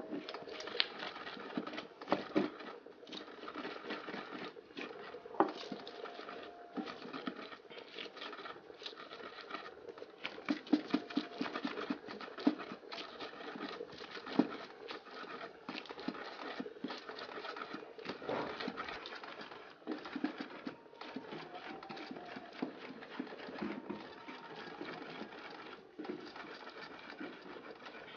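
Wooden pestle grinding and crushing onions and hot peppers in an earthenware grinding bowl: irregular scraping and squashing with frequent sharp knocks of wood against the bowl.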